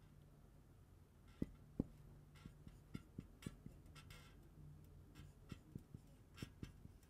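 Felt-tip marker writing on a whiteboard: faint scratchy strokes and small taps of the tip. Two sharper taps about a second and a half in are the loudest, followed by a run of lighter ticks.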